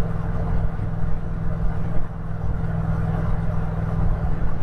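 Yamaha MT-07's 689 cc parallel-twin engine running at a steady speed while riding, under a steady rush of wind and road noise.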